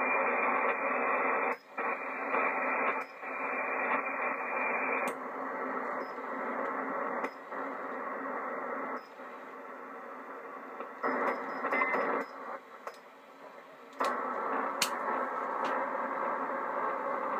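Yaesu FT-757GX HF transceiver's receive audio: a steady hiss of band noise and static through its speaker as it is switched between bands. The noise cuts out or drops in level several times as buttons are pressed, with a couple of sharp clicks.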